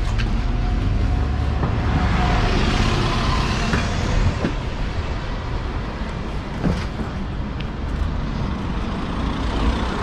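Road traffic noise with a vehicle passing close by, and a few sharp knocks partway through.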